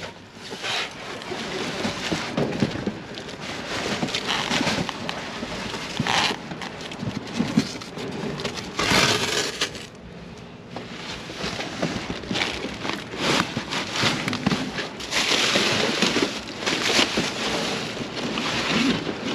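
Cardboard boxes and plastic bags being shifted and crumpled by hand in a dumpster: rustling, crinkling and scraping that comes and goes unevenly.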